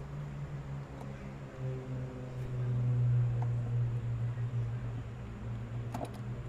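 A steady low mechanical hum that swells louder about two seconds in and then eases off, with a few small clicks near the end from hands working among hoses and parts in an engine bay.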